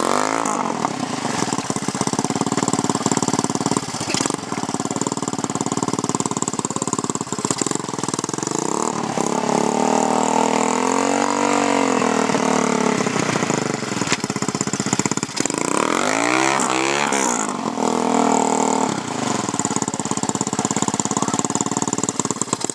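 Honda ATC 200 shaft-drive three-wheeler's single-cylinder four-stroke engine running under load while the machine is stuck in a waterhole. It revs up and back down in two long swells, one about nine seconds in and another about sixteen seconds in, between stretches of steady running.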